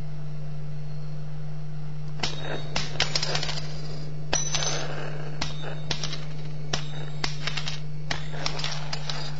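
Heated brass-and-iron bimetallic discs snapping and jumping, landing with a series of sharp metallic clicks and clinks from about two seconds in, some ringing briefly. A steady low hum runs underneath.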